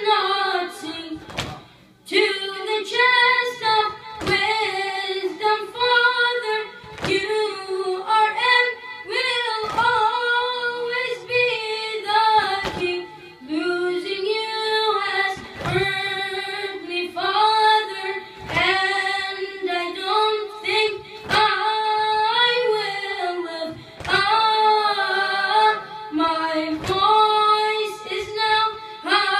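A boy's unbroken voice singing a latmiya, a Shia mourning elegy, solo and unaccompanied into a microphone. It moves in long melodic phrases with short breaths between them.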